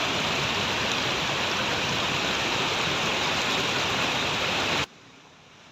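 A medium-sized waterfall rushing steadily, a loud even wash of falling water. The sound cuts off abruptly near the end, leaving a much quieter background.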